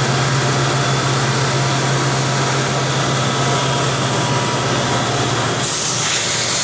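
CNC machine running: a steady machine hum with a constant high-pitched whine. About five and a half seconds in, a loud hiss joins it.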